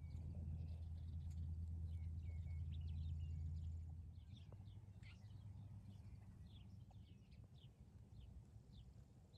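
Faint, scattered short chirps of small birds calling in open country, over a low steady rumble that drops away about four seconds in.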